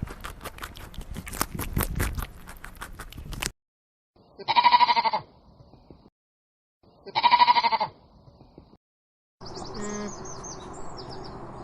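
Two loud, wavering bleats, each just under a second long and about three seconds apart. Before them comes a rapid run of sharp clicks and crackles, and near the end a different animal sound with high chirps begins.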